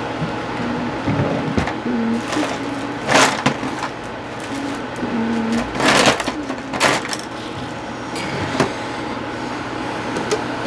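Handling noise from a cardboard eyeshadow palette and its clear plastic packaging being moved close to a clip-on microphone. There are a few loud rustling scrapes about three, six and seven seconds in, over a steady background hiss.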